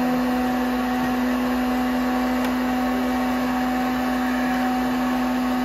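Electric popcorn maker running empty while it preheats: a steady whir with a constant low hum.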